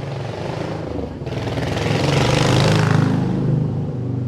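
A motor vehicle's engine running close by as it passes, swelling to its loudest about two and a half seconds in and then fading.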